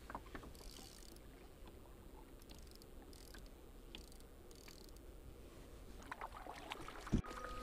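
Faint water sounds from a kayak moving along a lake while trolling, with a few small clicks and one sharp knock about seven seconds in.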